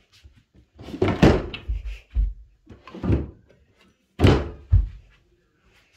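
A handful of loud knocks and deep thuds as household things are moved about and set down, the loudest about a second in and again just past four seconds in.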